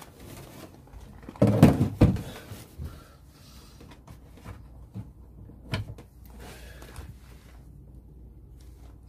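Metal hand tools being handled and set down: a loud clatter about one and a half seconds in, then a few separate clicks and light knocks.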